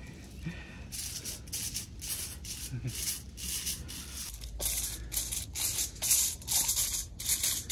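Hands rubbing masala paste onto a whole mangrove jack, a run of short rubbing strokes that come faster and louder in the second half.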